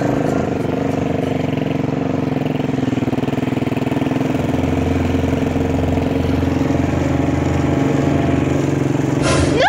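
ATV (quad bike) engine running steadily as it is ridden, its low tone strengthening for a few seconds in the middle. Right at the end there is a sudden noisy burst with a short rising cry.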